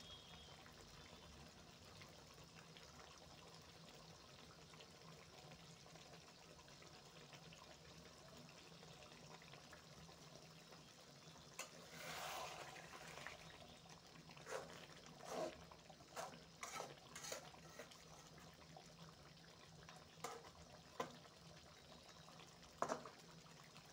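A faint steady hiss, then from about halfway a metal spoon stirs chicken curry in an aluminium kadai. There is a brief wet swish, then scattered light knocks and scrapes of the spoon against the pan.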